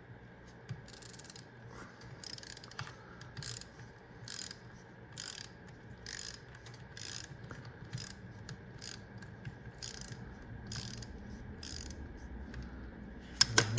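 A 3/8-inch ratchet with a 13mm socket clicking through about a dozen short back-strokes, each under a second apart, as a bolt is loosened to drop the oil filter. A louder knock comes near the end.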